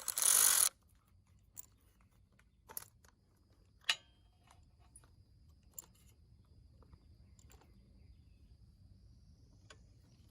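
A short rushing burst, then scattered light metallic clicks and clinks of hand tools and small engine parts as the cam chain tensioner is unbolted from a Honda TRX400 engine.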